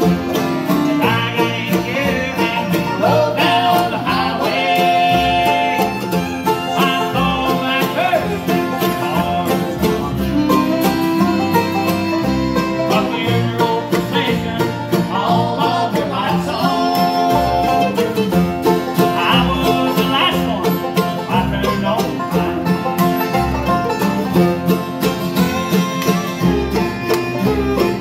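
Live bluegrass band playing an instrumental passage: five-string banjo, mandolin, fiddle, acoustic guitar and upright bass, over a steady bass beat.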